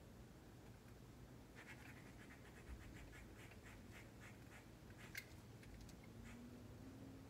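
Faint, quick scratching strokes at a window frame during caulking work, about two or three a second for a few seconds, with one sharper click about five seconds in.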